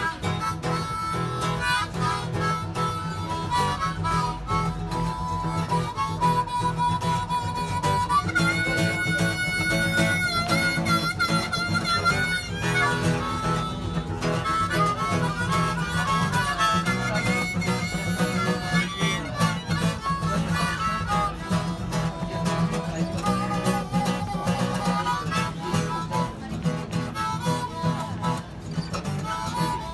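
Live blues jam: a harmonica plays a melody over a steadily played guitar, holding one long high note that wavers for about four seconds roughly a third of the way in.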